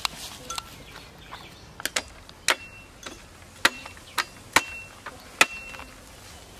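A run of sharp snaps or clicks, about seven, irregularly spaced over the middle few seconds. A few are followed by a brief ringing tone.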